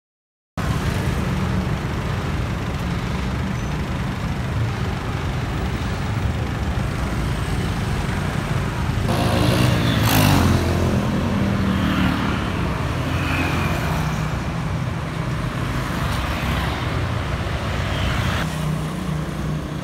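Road traffic, mostly motorcycles and scooters, running past in a steady stream, starting suddenly just after the beginning. About ten seconds in, one bike passes close and louder, its engine pitch sliding as it goes by.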